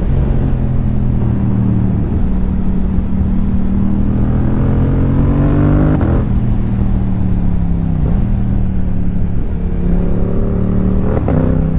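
2022 Yamaha YZF-R7's 689 cc parallel-twin engine through a Yoshimura R77 carbon-fibre exhaust, accelerating under throttle. Its note climbs over several seconds, then drops sharply at an upshift about six seconds in, with more shifts after that.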